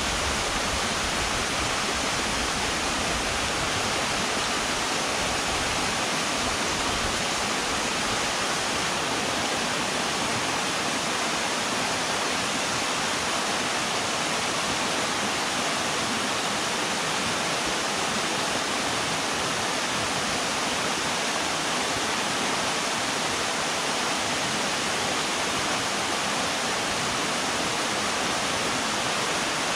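Steady rushing of river water, an even, unbroken hiss.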